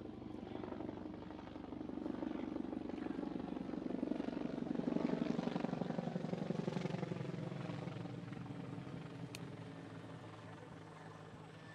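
Helicopter passing overhead, the fast chop of its rotor blades growing louder to a peak about halfway through, then fading as it moves away.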